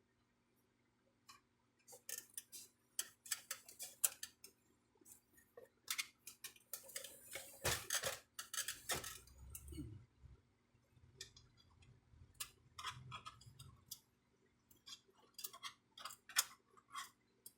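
Irregular clicks, taps and rattles of plastic parts of a Brother inkjet printer being handled during disassembly, with a longer scraping stretch midway.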